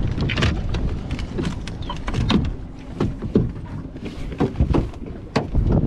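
Scattered knocks, clatters and rustles of gear being handled on a fibreglass boat deck, around a cooler lid and a plastic bag.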